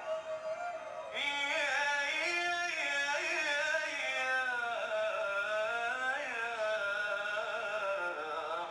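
Male voice singing an Arabic mawwal: long ornamented lines that waver and bend up and down in pitch, growing louder about a second in.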